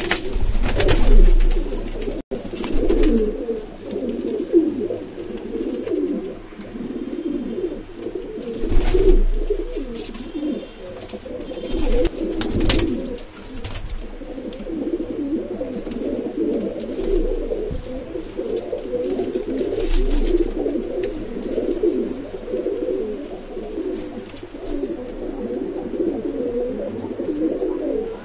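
Domestic pigeons cooing steadily, several calls overlapping, with a few short louder noises about a second in, near nine seconds and near twelve seconds.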